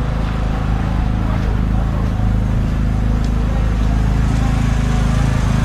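An engine idling steadily at a constant speed.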